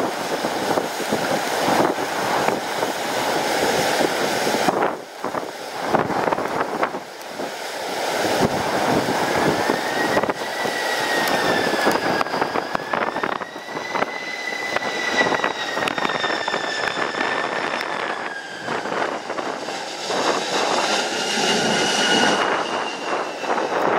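Jet airliner landing, its engines giving a high whine that drifts up and down in pitch for several seconds, over strong gusty wind buffeting the microphone.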